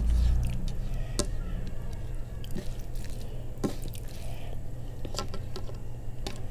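A bare hand squishing and mixing rice with curry on a plate: soft wet squelching with a few sharp clicks and crackles, over a low steady hum.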